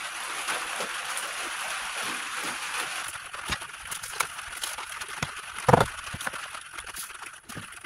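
Steady rain noise for about three seconds, then scattered light taps and knocks, with one louder thump a little before six seconds in.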